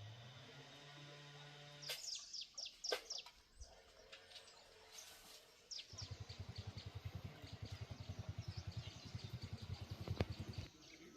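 Birds chirping with quick, high, falling calls. After about two seconds of a steady low hum, a fast low pulsing of about eight beats a second starts about six seconds in and stops just before the end.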